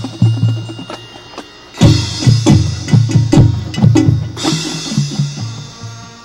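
Marching band playing in a competition show: the drum line beats a driving pattern of bass-drum and snare strokes. Cymbal crashes come about two seconds in and again just past four seconds, and the band holds sustained chords near the end.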